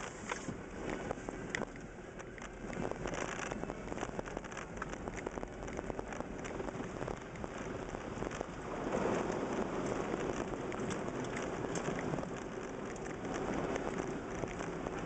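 Water and mud spattering against a vehicle's body and windscreen, with many small ticks of flying clods striking it. About eight and a half seconds in it turns to a louder rush as the vehicle drives through a muddy pool.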